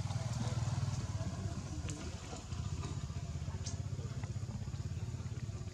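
An engine running steadily nearby, a low pulsing hum like a motorbike idling, with a few faint high clicks over it.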